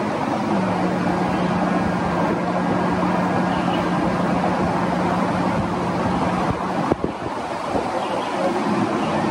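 A woman humming one long, steady low note with closed lips in Bhramari (humming-bee) breathing. The hum lasts about six seconds over a steady rushing background noise, and there is a short click as it ends.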